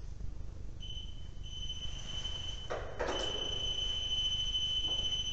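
A steady, high-pitched electronic beep tone from a small device starts about a second in, drops out briefly, then holds on unbroken. A short burst of noise cuts across it about three seconds in.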